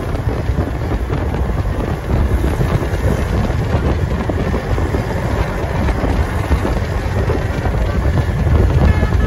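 Steady low rumble of a passing bus's engine and road noise, with wind buffeting the microphone, growing a little louder near the end.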